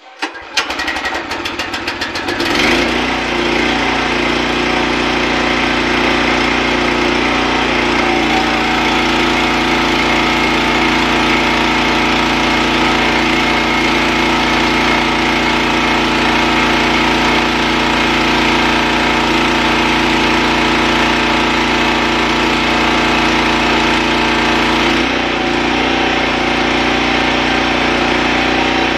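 Gas-engine pressure washer starting up: a quick run of firing pulses as it catches, then a steady run. Near the end its note dips briefly and settles again.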